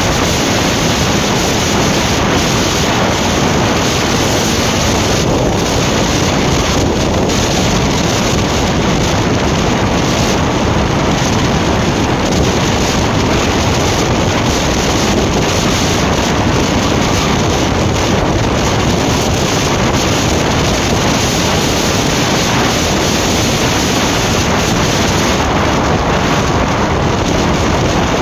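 Steady rush of wind on the microphone from a Yamaha R15 V3 cruising in sixth gear at about 80 to 100 km/h, with the 155 cc single-cylinder engine's drone mixed in underneath.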